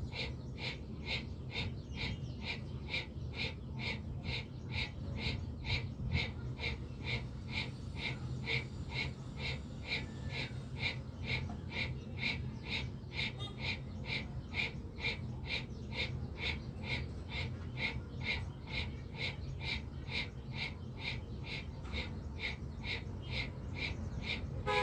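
Bhastrika pranayama (bellows breath): forceful, even breaths in and out through the nose at a fast steady pace, about two to three strokes a second.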